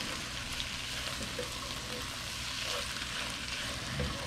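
Chicken pieces frying in a hot pan on high heat: a steady sizzling hiss with small crackles and pops, and a soft low bump near the end.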